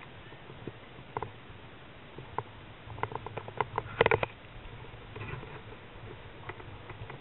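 A run of small sharp clicks and knocks. A few come singly, then there is a quick run of them about three seconds in, loudest near the four-second mark, and fainter ones after.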